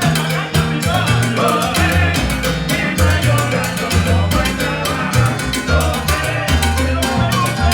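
Salsa band playing live, with a moving bass line under steady, driving percussion.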